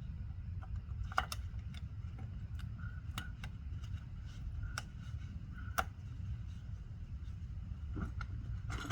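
Scattered sharp clicks and taps, like hand tools on metal, about five of them spaced irregularly, over a steady low rumble.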